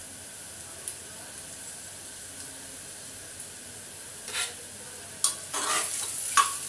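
Onions frying in hot oil, sizzling steadily as they brown. A utensil stirs and scrapes them around the pan in a few short strokes in the second half.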